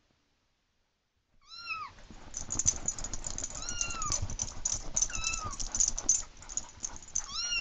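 Kitten-meow ringtone playing on a cell phone. After a moment of silence come four recorded meows, each arching up and falling, about two seconds apart, over a dense clatter of clicks and scuffling.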